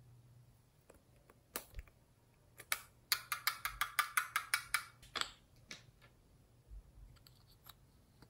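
A rhinestone-studded metal cosmetic case being handled and worked open over a glass tray. A few single clicks, then about three seconds in a quick even run of about a dozen sharp clicks, some six a second, lasting under two seconds.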